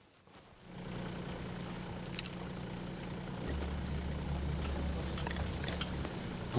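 Low, steady engine hum that rises out of near silence about a second in, with a deeper tone joining about halfway through.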